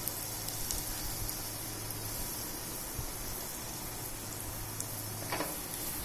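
Crushed garlic cloves frying in hot oil in a small pan: a steady sizzle.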